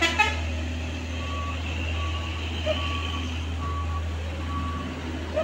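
A heavy cargo truck's diesel engine rumbling steadily as it passes slowly, with a warning beeper sounding a short tone about once a second. Two brief sharp sounds come right at the start.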